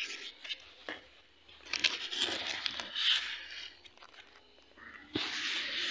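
Cardboard box rustling and scraping as kittens and a hand move about inside it, in two spells of scratchy noise, about two seconds in and again near the end.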